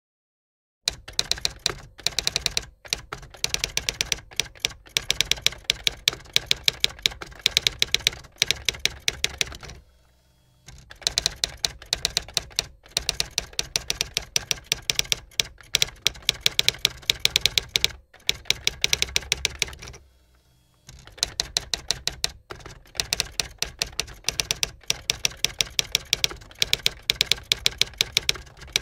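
Typewriter typing sound effect: rapid key clacks, several a second, in long runs that break off twice for under a second.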